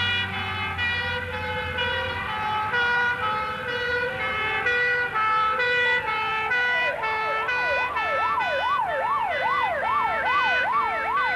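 Fire engine sirens: a two-tone siren alternating steadily between two notes, with low engine noise that fades in the first couple of seconds. About seven seconds in, a second siren joins with a fast rising-and-falling yelp, about two sweeps a second.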